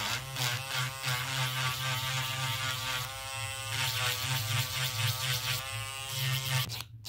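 Handheld electric nail drill buzzing steadily as its bit files an artificial nail, the hum wavering slightly with pressure, then stopping suddenly near the end.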